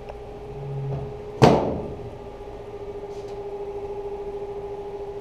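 A steel locker door clanks once, sharp and ringing, about a second and a half in, over a steady hum.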